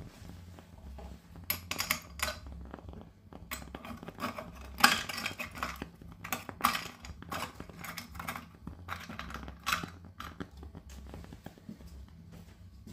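Lumps of calcium carbide clinking and rattling against metal as a few are handled and put into the carbide lamp's chamber. The clicks come irregularly, with a sharper knock about five seconds in.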